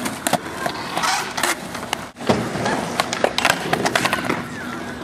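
Skateboard wheels rolling on asphalt with a steady rumble, broken by a dozen or so sharp clacks of the board's tail and wheels hitting the ground as flat-ground tricks are popped and landed or missed.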